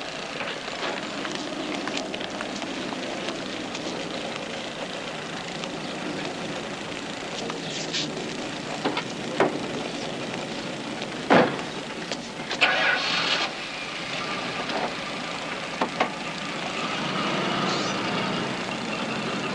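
Patrol car sounds: a sharp knock like a car door shutting about eleven seconds in, then an engine starting and running, louder near the end.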